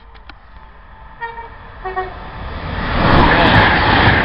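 Virgin Pendolino (Class 390) electric train sounding a short two-tone horn, a high note then a lower one, about a second in. It then passes the platform at speed with a rising rush of wind and wheel noise that is loudest from about three seconds.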